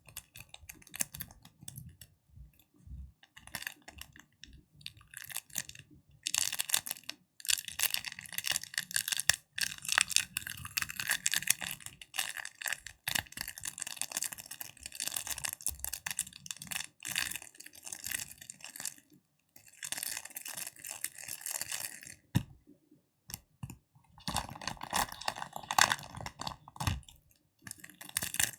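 Sticky hands crackling and tapping: rapid, dense crackles come in bursts of a few seconds, broken by short pauses.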